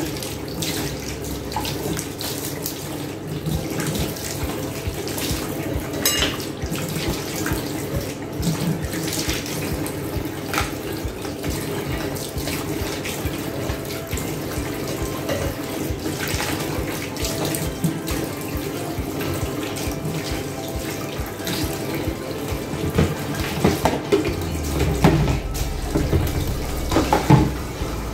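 Kitchen tap running into a stainless steel sink while half-shell mussels are rinsed and cleaned under the stream. A few knocks of shells and dishes come near the end.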